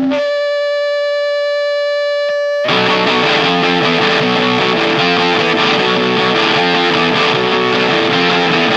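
Opening of a recorded rock song on distorted electric guitar. A single held guitar note rings on its own, then about two and a half seconds in a dense, louder distorted guitar part comes in over a sustained note.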